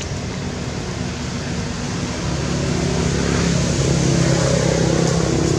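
A motor engine humming at a steady pitch under a constant rushing noise, growing louder and shifting to a slightly different pitch about halfway through.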